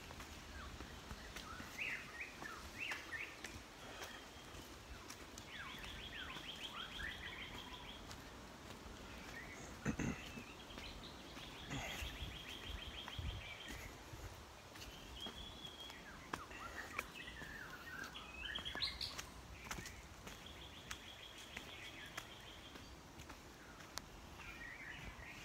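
Forest birds chirping and calling, with whistled chirps and three short fast trills of rapidly repeated notes spread through. A single low thump stands out about ten seconds in.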